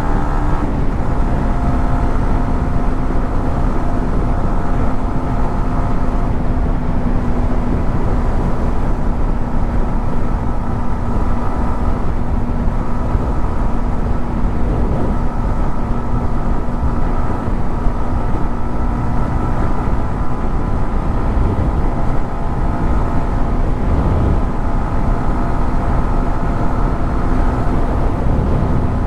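Yamaha MT-15's single-cylinder engine running at a steady cruising pitch, with a dense rush of road and wind noise beneath it. The pitch drops slightly about a second in and then holds.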